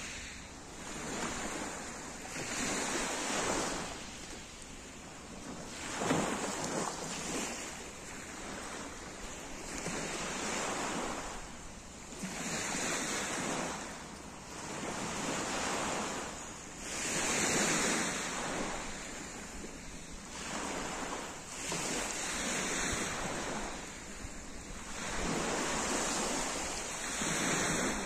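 Small sea waves breaking and washing over a pebble beach, the surf swelling and fading every two to three seconds.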